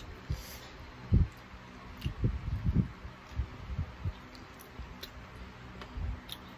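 Close-up eating sounds: sauced chicken feet being handled with the fingers and chewed, with irregular soft low thuds, the loudest about a second in, and faint clicks.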